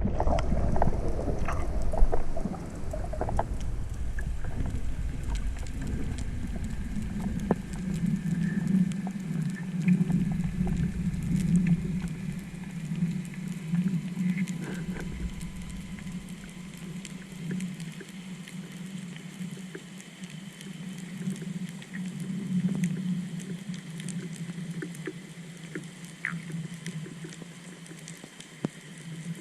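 Underwater ambience: a constant fine crackle of clicks with a steady low hum of a boat motor heard through the water. Heavy rumbling water noise over the first few seconds, then the hum settles in.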